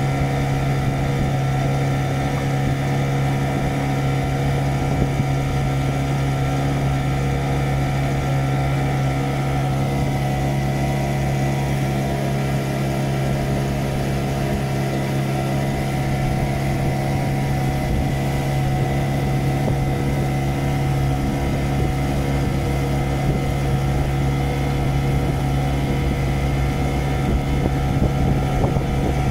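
Small boat's motor running steadily underway, a constant low hum with overtones. A thin high tone joins about ten seconds in.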